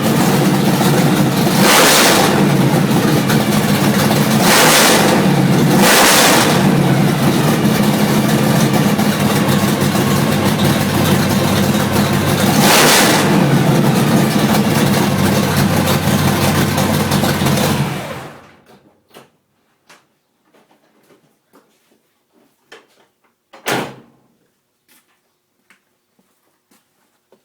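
Third-generation car's engine idling roughly, with a few brief surges in its sound, then switched off about eighteen seconds in. Afterwards only faint clicks and a single knock are heard.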